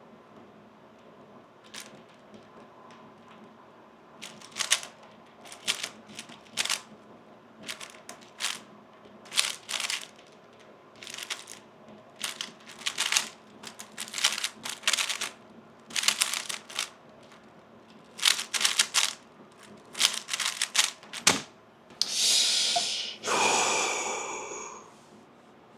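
3x3 Rubik's speed cube being turned fast: quick flurries of plastic clicking and clacking as the layers turn. They end with a sharp knock about 21 seconds in, then a couple of seconds of loud rushing noise.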